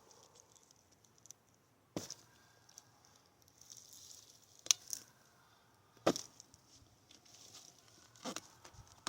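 Stiletto out-the-front knife stabbed into a tire four times, a sharp thud at each stab, the strikes a second or two apart.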